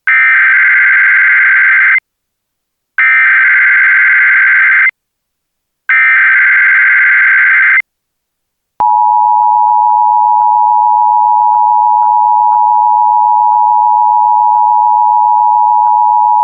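Emergency Alert System signal for an AMBER Alert: three bursts of SAME digital header data, each about two seconds long and about a second apart, then about a second later the steady two-tone attention signal, held for about eight seconds.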